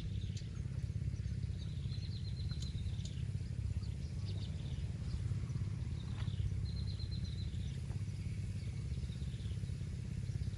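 Small birds chirping, with two short rapid trills about two seconds in and again about seven seconds in, over a steady low rumble.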